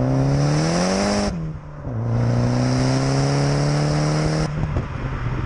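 Saab B204 turbocharged 2.0-litre four-cylinder in a Vauxhall Astra, heard at the exhaust, revving up hard under acceleration. It drops away briefly about a second in, then pulls again with a slower climb in pitch and cuts off suddenly near the end.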